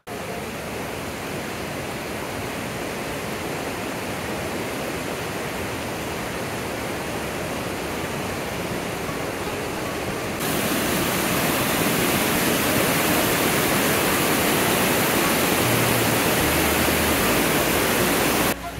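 Rushing river rapids: a steady, dense rush of water that turns louder and brighter about ten seconds in.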